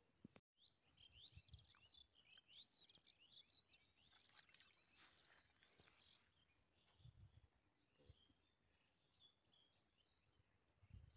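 Faint outdoor ambience with small birds chirping in the background, many short chirps in the first half, and a few soft low thumps. The sound drops out briefly about half a second in.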